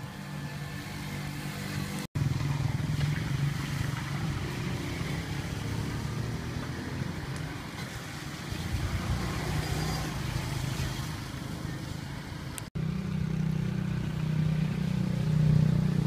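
A steady low engine hum over outdoor background noise. The sound drops out for an instant twice, about two seconds in and about three-quarters of the way through, and the hum comes back stronger after each break.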